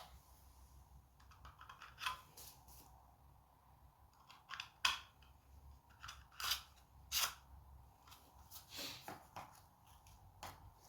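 A few scattered, faint clicks and taps from parts and tools being handled during engine strip-down.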